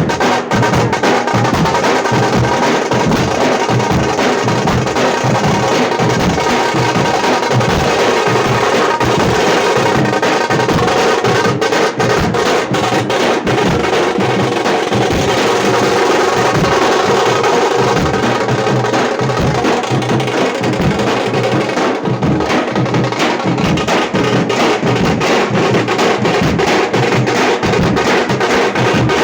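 Tamate, the South Indian frame drum, beaten with sticks in a fast, dense, unbroken rhythm.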